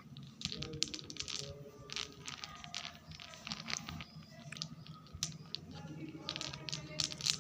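Plastic packaging of mothballs being handled, crinkling and rustling with many sharp, irregular clicks and crackles.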